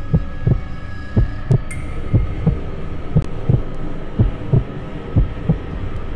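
Heartbeat sound effect: low thumps in lub-dub pairs, about one pair a second, over a steady low hum.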